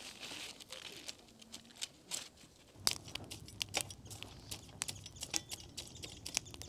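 Wood fire crackling: irregular sharp pops and snaps, coming thicker about three seconds in, when a faint low rumble joins underneath.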